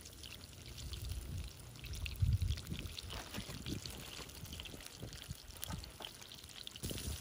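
A freshly floured chicken leg deep-frying in hot oil in a cast iron skillet: steady sizzling and bubbling with small crackling pops. A few dull low thumps, the loudest about two seconds in.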